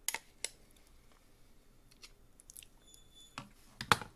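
Plastic Ninja Creami pint container and lid being handled on a countertop: a few scattered light clicks and taps, with a louder knock near the end.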